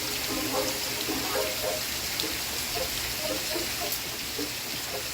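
Steady rain hiss, with faint short tones from an old television broadcast's soundtrack underneath.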